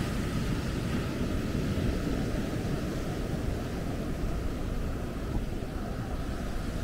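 Wind blowing on the microphone as a steady low rumble, with the wash of ocean surf underneath.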